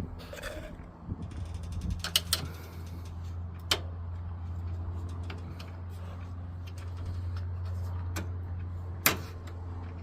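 A few sharp clicks and knocks of a tool prying the shifter cable's grommet out of the floor from under a 2008 Chevy Express, the loudest near the end, over a steady low hum.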